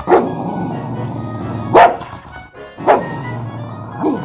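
Cocker spaniel barking four times, with a plush toy held in its mouth; the second bark is the loudest.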